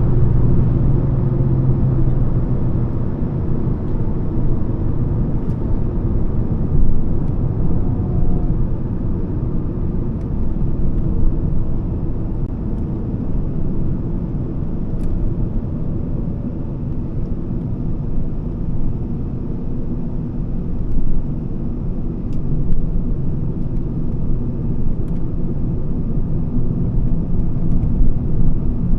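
Volvo S40's 2.4-litre five-cylinder petrol engine and tyre road noise while driving. The engine's tone eases off in the first few seconds as the car slows, leaving a steady low road rumble.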